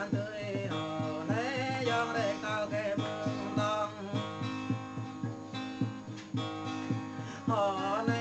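Background music: a song with a wavering, gliding melody over steadily plucked string accompaniment.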